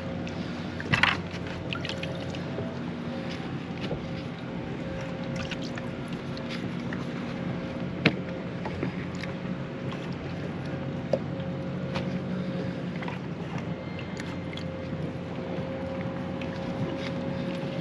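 A boat's motor running steadily, a constant drone with a few held tones. It is broken by a few sharp clicks, the loudest about a second in and about eight seconds in.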